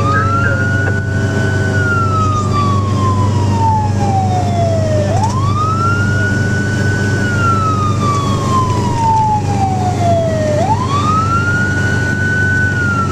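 Fire engine's siren heard from inside the cab, wailing in long cycles about every five and a half seconds: each one rises quickly, holds briefly at the top, then falls slowly. Under it runs the steady drone of the truck's engine.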